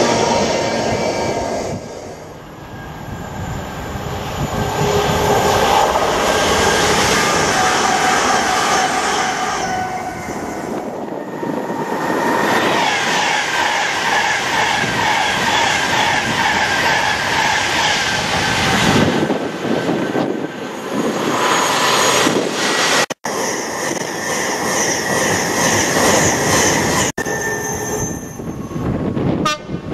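Trains passing a station at speed: the last wagons of an intermodal container freight train rumbling by, then a Class 390 Pendolino electric train rushing past with a quick repeating clatter from its wheels on the rails. The sound cuts off abruptly twice near the end.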